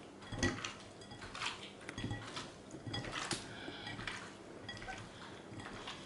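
Hands turning raw squid rings and shrimp in lemon juice in a glass bowl: quiet wet handling with scattered light clinks against the glass.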